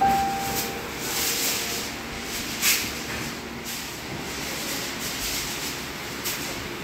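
A single piano note from the background music fades out at the start, then a steady hiss with a few soft brushing swishes, without music.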